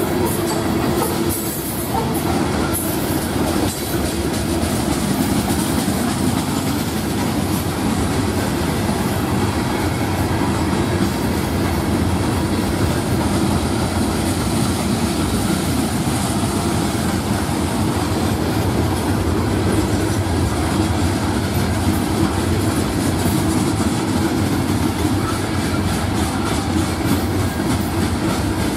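Florida East Coast freight cars (covered hoppers and open hoppers) rolling slowly past: a steady rumble and clatter of steel wheels on the rails.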